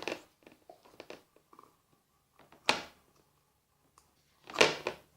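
Homemade slime being handled and squished by hand: a few light clicks, then two short, loud squelches about two seconds apart.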